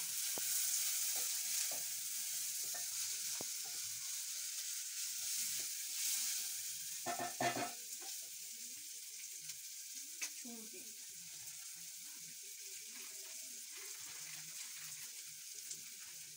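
Chopped onions sizzling as they fry in oil in an aluminium pot, stirred with a wooden spoon that knocks and scrapes lightly against the pot. The sizzle is strongest in the first half and eases off after about eight seconds.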